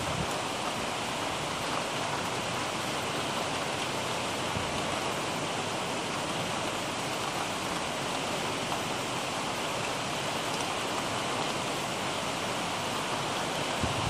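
Heavy rain falling steadily, an even hiss with no breaks.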